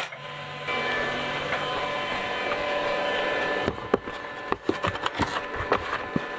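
A small inverter stick welder's cooling fan hums steadily for about three seconds. It then gives way to gritty scraping and light irregular knocks as a hot cast iron skillet is set into dry sand and buried, so it cools slowly after welding.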